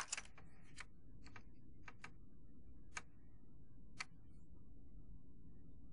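Plastic Lego bricks clicking faintly as a hand picks through a box of them and sets a piece on a baseplate: a scatter of sharp clicks, most in the first two seconds, with the last one about four seconds in.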